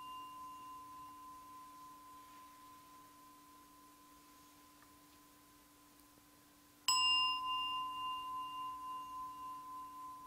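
A small meditation bell rings with a clear high tone. It is struck once just before and slowly fades, then is struck again about seven seconds in, louder, and rings on, decaying slowly.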